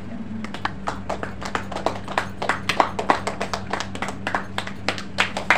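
A small audience clapping. The claps are scattered at first and grow denser and louder toward the end. A steady low hum runs underneath.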